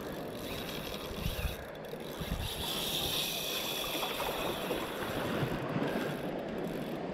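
Wind on the microphone and shallow sea water washing around the wading angler's legs. A faint, steady high whine comes in around the middle.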